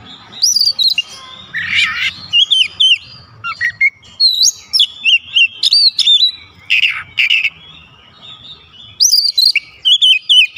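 Oriental magpie-robin singing a varied song of loud, quick whistled notes that bend up and down, mixed with a few harsh, scratchy notes. It pauses briefly shortly before the end, then starts again.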